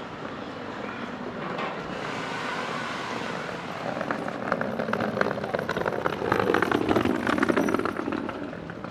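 A motor vehicle driving past, growing louder about halfway through and fading near the end.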